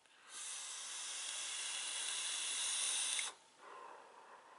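A long drag on a vape mod: a steady hiss of air drawn through the atomizer for about three seconds that stops abruptly, then a softer breath out of the vapour.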